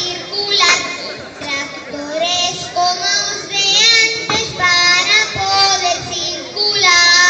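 A group of children singing a traditional Galician maio song together, with a long held note near the end. Two sharp knocks cut through the singing, one under a second in and one past the middle.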